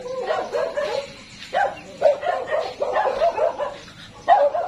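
Animal calling in quick runs of short, pitched yelps, in several bouts: one at the start, another from about one and a half to three seconds in, and a last one near the end.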